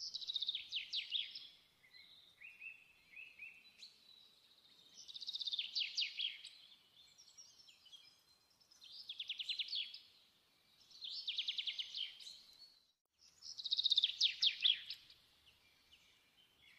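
A small songbird singing short phrases of rapid trilled notes, one every two to three seconds, with softer chirps between them.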